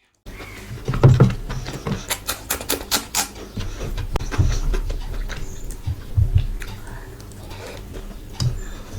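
Close-miked eating sounds: chewing with wet mouth smacks and clicks, a quick run of sharp smacks about two to three seconds in.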